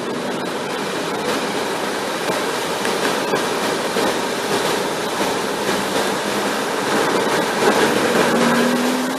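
Steady rush and splash of floodwater as a car drives through a deeply flooded street, with an engine note rising near the end.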